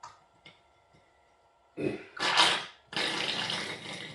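A hydraulic cylinder is being stroked by hand to drain it. After a couple of light clicks, hydraulic fluid and air sputter out of the cylinder's port: a loud spurt about two seconds in, then a longer sputtering spurt.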